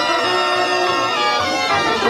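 A cobla wind band playing a sardana, with the reedy, nasal tenora and tible shawms carrying sustained melody notes.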